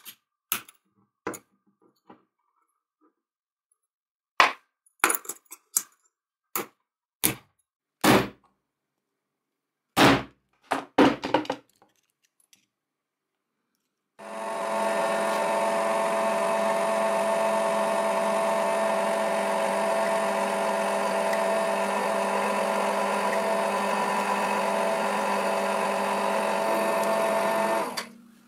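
About a dozen sharp metal clicks and knocks from steel hand tools working a small ball bearing and the armature shaft. About fourteen seconds in, a small electric motor starts and runs at a steady speed with a constant hum, then stops just before the end.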